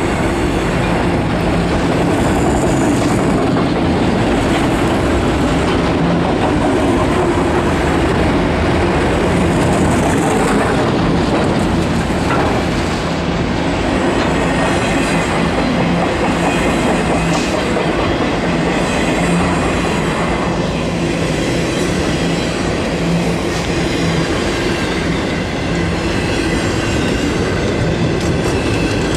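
Freight cars rolling past at speed: a loud, steady rumble of steel wheels on rail that goes on without a break.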